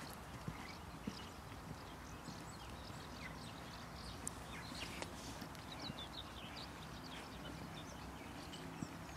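Faint hoofbeats of a ridden horse working on a sand arena, with light scattered ticks over a steady outdoor background hiss.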